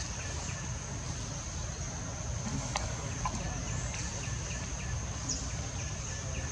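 Forest ambience: a steady high-pitched insect drone, with faint short chirps repeating now and then and a low rumble underneath.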